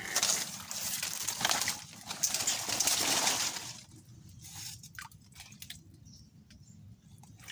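Water splashing and leaves rustling as a slatted bubu crab trap is pulled up and handled in shallow water. It is loud for the first few seconds, then drops to faint drips and small clicks.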